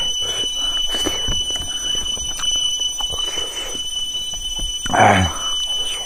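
A steady high-pitched whine on one pitch, with a short voice about five seconds in.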